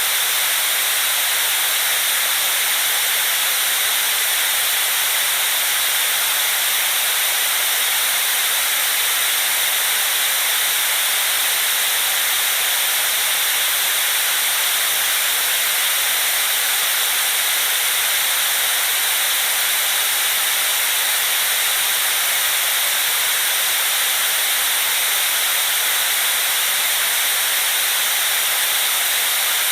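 Steady white noise: an even, unbroken hiss, bright and high with little bass.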